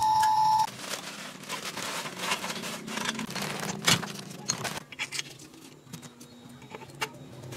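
Scattered small clicks, taps and scrapes of objects being handled, with one sharper click about four seconds in. A short steady beep cuts off just after the start.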